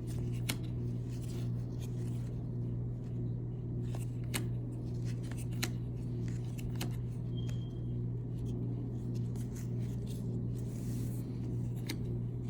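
Baseball cards being handled and flipped through, giving a few short sharp clicks and snaps, about half a dozen spread over the stretch, over a steady low hum.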